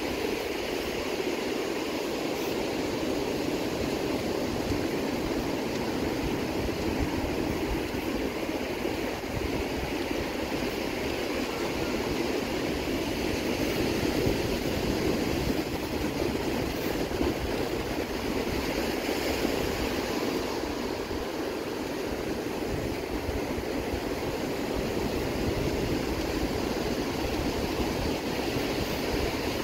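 Ocean surf breaking and washing up a sandy beach, a steady rush of noise, with wind rumbling on the microphone.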